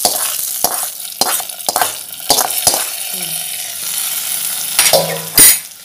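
Hot-oil tempering of mustard seeds, urad dal and dried red chillies sizzling as it is tipped from a small pan into mashed ridge gourd. A metal spoon scrapes and knocks against the pan and cooker while it is stirred in. A single loud sudden noise comes about five and a half seconds in.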